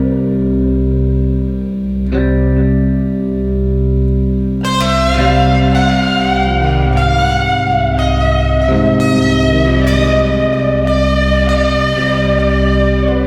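Instrumental music with guitar: sustained chords over a steady low bass, changing about every two seconds, with a brighter lead line coming in about four and a half seconds in.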